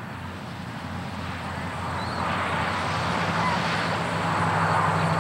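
Steady low hum with a rush of background noise, like distant road traffic, that swells about two seconds in, and a couple of faint high chirps.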